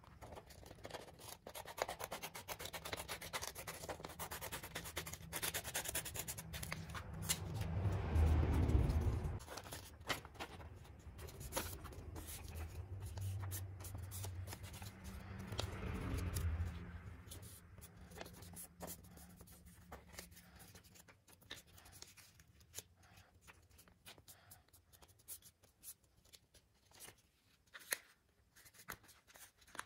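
Small scissors cutting through folded paper, then paper being folded and creased by hand: rustling, scraping and small clicks, with two louder stretches of rustle about eight and sixteen seconds in.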